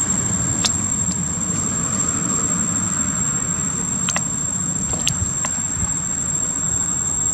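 Outdoor ambience: a steady high-pitched insect drone over a low rumble, broken by a few short sharp clicks.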